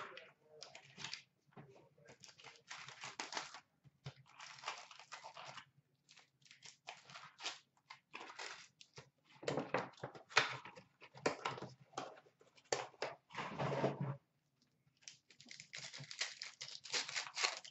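Plastic wrap and foil hockey card packs crinkling and tearing as a hobby box is unwrapped and the packs are handled, in irregular bursts with a short pause about three-quarters of the way through.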